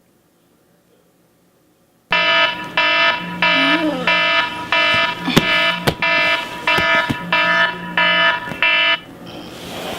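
Electronic alarm beeping in a steady repeated pattern, about a dozen loud beeps starting about two seconds in and stopping about nine seconds in, with a few sharp knocks among them.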